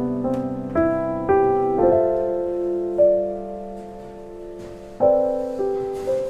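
Slow solo piano music: notes and chords struck about every half second, then a chord left ringing and fading for about three seconds before new chords come in near the end.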